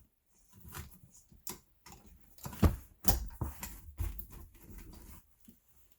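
Irregular knocks, taps and clicks of hand tools and rivet parts being handled on a workbench, with the sharpest knocks about two and a half and three seconds in.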